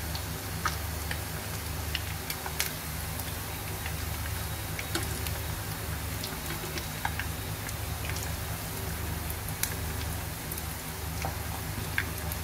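Battered grass carp pieces deep-frying in a pan of hot oil: a steady sizzle with scattered pops and crackles.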